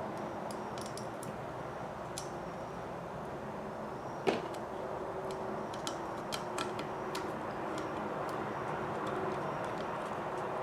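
Small clicks and taps of plastic RC kit parts and a screwdriver being handled while screws are started, with one sharper click about four seconds in, over a steady background hum.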